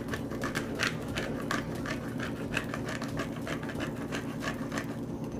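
Hand pepper grinder being twisted, cracking peppercorns with rapid, even grinding clicks, several a second.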